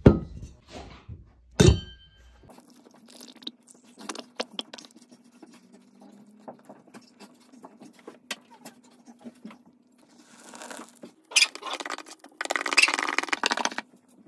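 Stainless-steel cup clanking twice against its metal base, the second clank ringing briefly; then a steady low motor hum with light ticking and bubbling as the milk froths and heats; near the end a louder rushing splash as more liquid is poured in.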